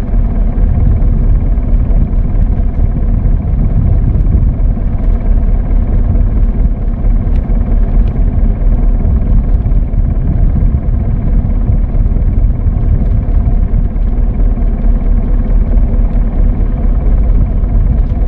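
Wooden fishing boat's inboard engine running with a steady, loud low rumble.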